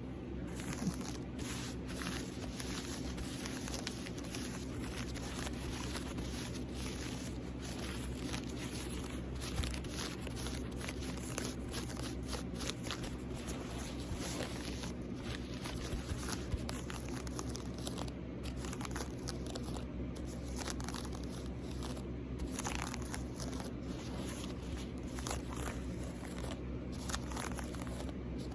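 Close-miked fingernail scratching and tapping on a small bear-shaped object: a continuous stream of irregular, crackly scratches and light taps.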